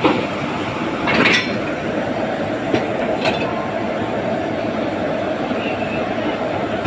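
Standing WAP4 electric locomotive humming steadily at the head of its coaches. A few short metallic clinks come through about a second in and again near three seconds.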